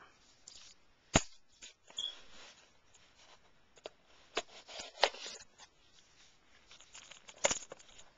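Shipping package being opened by hand: several sharp clicks and knocks of cardboard and packaging, with faint rustling between.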